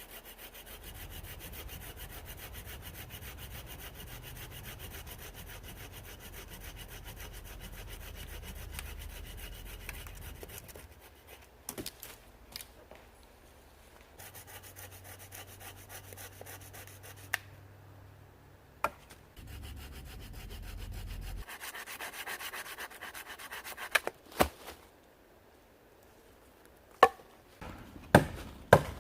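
Hand saw cutting through firewood in a long run of rasping strokes, then several sharp knocks of wood being chopped near the end.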